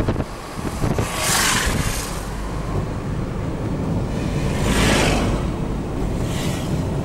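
Steady road and engine rumble heard from inside a moving car. Two swells of rushing noise rise and fade, about a second in and again near five seconds, with a couple of short knocks near the start.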